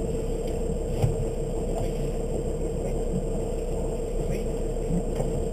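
Motorboat engine running steadily: a low rumble with a constant hum.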